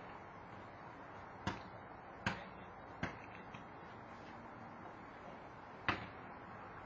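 Four sharp bangs at uneven intervals, over a steady low background hiss; the last comes near the end after a gap of almost three seconds.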